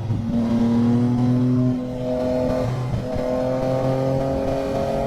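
Motorcycle engine accelerating through the gears: its pitch climbs steadily, breaking at gear changes around two and three seconds in.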